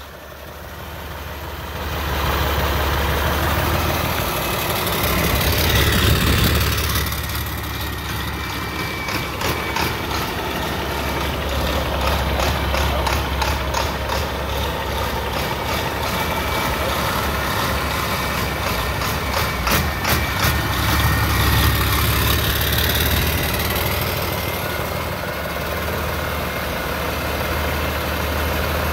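International MaxxForce DT 7.6-litre turbocharged inline-six diesel engine running at idle on a test run, a steady low diesel idle. The level comes up over the first two seconds and swells slightly about six seconds in and again near the two-thirds mark.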